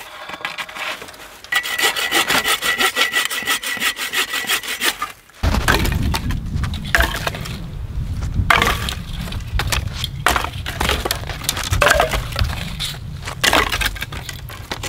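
Agawa Canyon Boreal 21 folding bow saw cutting wood by hand in quick, even strokes. After about five seconds it turns into irregular cracks and scrapes over a low rumble.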